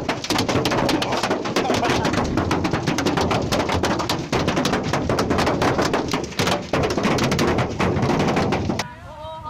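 A storm pelting a hard surface: a dense, continuous clatter of rapid impacts that cuts off abruptly near the end.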